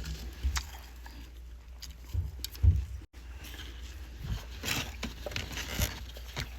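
Irregular crunching, scraping and mouth noises of a person eating frost, with scattered short clicks and a few low thumps over a steady low hum.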